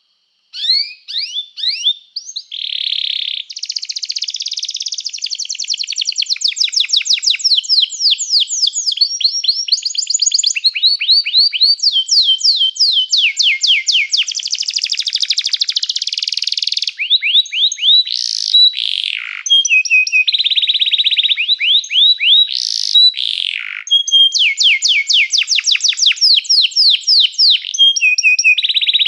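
Domestic canary singing continuously, its song made of rapid trills (rolls) that switch to a new pattern every second or two, with a few sharp down-slurred whistles in between.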